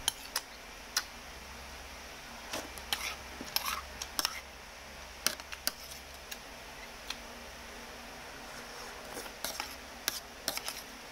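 A metal spoon clinking and scraping on a ceramic plate while food is scooped up, in scattered sharp taps that come in small clusters.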